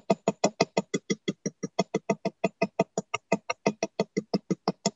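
A small jeweller's hammer tapping a copper rivet on a bench block to spread it into a mushroom head. The taps are rapid and even, about six or seven a second, each with a short metallic ring.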